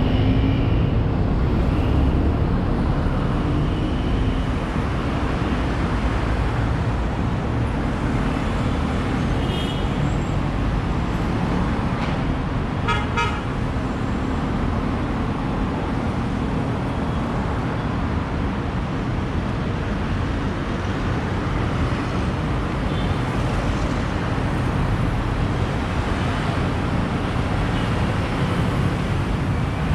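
Busy city road traffic: a steady rumble of engines and tyres, with a few short horn toots now and then, including a quick run of beeps about halfway through.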